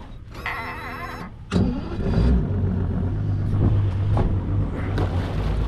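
Boat engine turned over by its starter for about a second with a wavering whine, then catching suddenly and settling into a low, steady idle.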